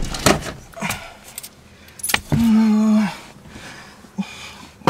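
Light clicks and rattles from someone handling things in a car's driver's seat. A steady low hum lasts under a second a little past the middle.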